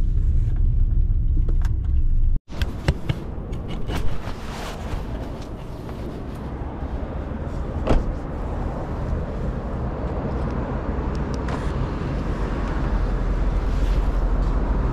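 Car noise: a low steady rumble that breaks off suddenly, then a steady rumble and hiss with scattered clicks and a sharp knock about four seconds in and another near eight seconds.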